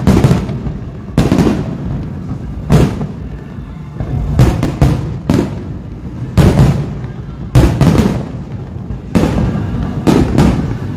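Fireworks shells bursting: loud bangs roughly once a second, some coming in quick pairs or triples, each trailing off in a rumbling echo.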